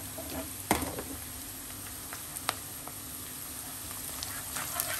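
Sliced onions and whole spices frying in oil in a wok, a steady sizzle. There is a sharp knock about a second in and a smaller click a couple of seconds later. Near the end the oil crackles more as a wooden spatula stirs the onions.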